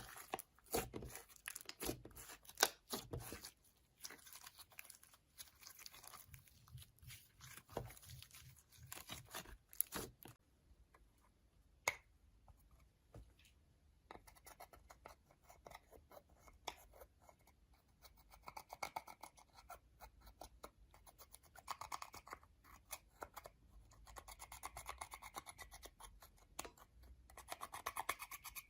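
Slime with makeup mixed in being worked by hand: a run of small sticky clicks, crackles and scrapes, denser and louder in the first half, fainter and scratchier later.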